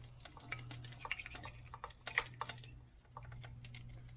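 Faint, irregular small clicks and light rattles of hands fitting wiring harness connectors and hoses, over a steady low hum.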